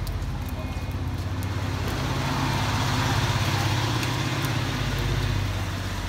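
Vehicle engine running steadily, growing louder from about two seconds in and easing off near the end.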